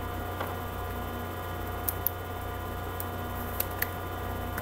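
Steady electrical hum from the recording setup, with a few faint, light clicks from trading cards being handled.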